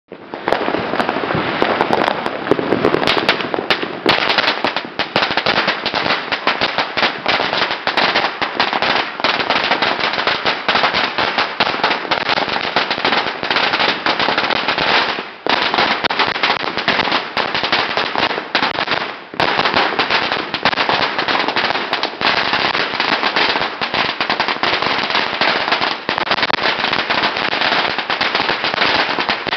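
A long string of Chinese firecrackers (biānpào) going off in a rapid, continuous rattle of sharp bangs, with two short lulls a little past the middle before the string carries on.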